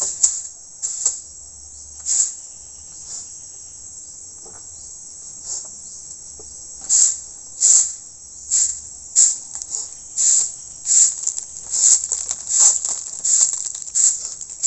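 Forest insects chirping in short, high-pitched pulses over a steady high drone: the pulses come sparsely at first, then about two a second from about seven seconds in.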